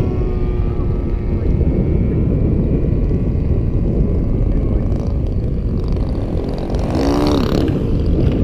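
Gas engines of radio-controlled model warbirds droning at reduced throttle during a landing approach, over a heavy low rumble. Near the end one plane passes close, swelling loud with its engine note bending down and back up.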